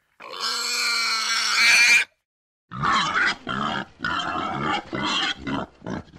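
Wild boar calling: one long pitched squeal of about two seconds, then after a short pause a run of short grunts, roughly two a second.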